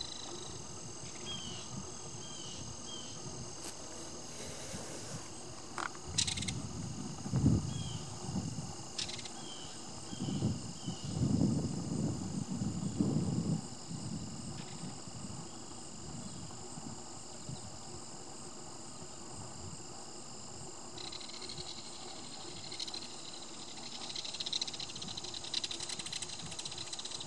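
Steady chorus of crickets and other insects trilling at several high pitches. A run of short chirps comes in the first few seconds and again about nine seconds in, and a few low rumbling thumps fall between about seven and fourteen seconds.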